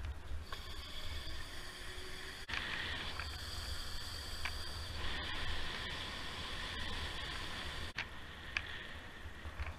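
Wind rumbling on a helmet-mounted camera's microphone while riding a bicycle, with a steady high whine alongside and a few sharp knocks, the loudest about eight seconds in.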